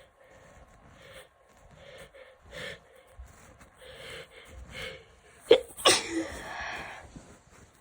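A person with a cold taking short, hitching breaths, then a sneeze in two sharp bursts close together about five and a half seconds in, trailing off in a breathy exhale.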